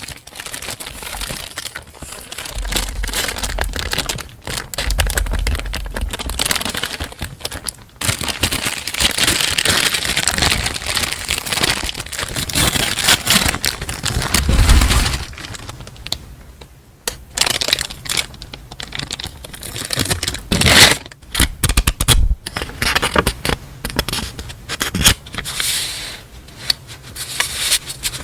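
Paper and packaging handled and unwrapped close to the microphone: irregular crinkling, rustling and tearing, with a few dull thumps.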